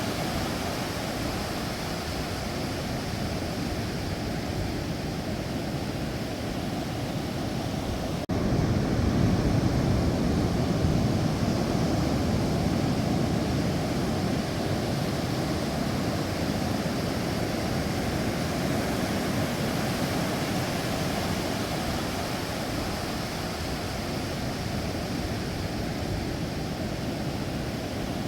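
Sea waves washing ashore: a steady rush of surf, heaviest in the low end. About eight seconds in the level jumps up suddenly, then slowly settles back.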